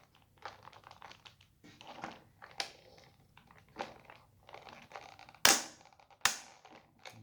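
Plastic toy excavator and its packaging being handled: scattered rustling, crinkling and small clicks, with two sharp loud clacks about five and a half and six seconds in.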